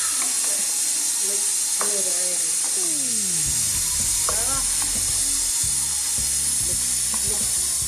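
Gizzards in pepper stew sizzling steadily in a pot as a wooden spoon stirs them, under background music.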